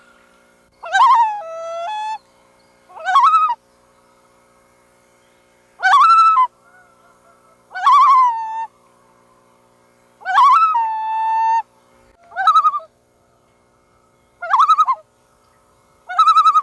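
Loon calling again and again: about eight short, clear calls with a few seconds between them, each rising and falling, some trailing off on a lower held note. A faint steady hum sits underneath.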